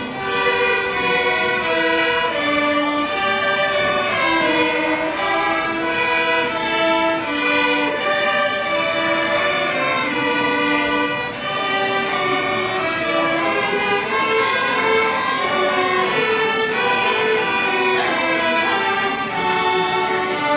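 Children's instrumental ensemble playing a tune, with bowed strings carrying the melody in held, stepwise notes.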